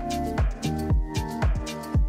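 Electronic background music with a steady kick-drum beat, about two beats a second, under sustained synth notes.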